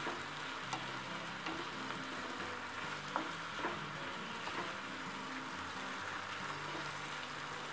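Chopped shrimp with tomato, onion and chile frying in a nonstick skillet with a steady sizzle. A wooden spoon stirs through it, making a few light clicks against the pan.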